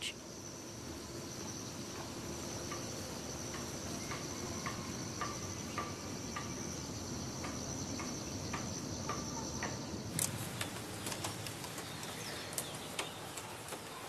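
Insects trilling steadily in a high, even tone, with a few short, faint chirps over it. The trilling stops about ten seconds in, leaving scattered light clicks.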